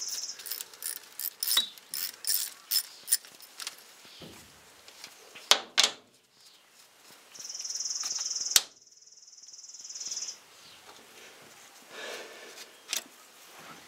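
Socket ratchet clicking in quick irregular runs as a bolt on a cover under the truck is backed out, followed by a few sharp single clicks. A cricket trills steadily for a few seconds midway.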